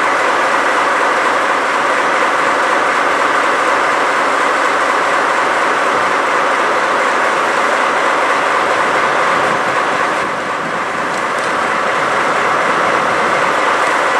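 JNR Class DD51 diesel-hydraulic locomotive with twin diesel engines, standing still and idling with a steady, loud engine and fan noise that eases briefly about ten seconds in.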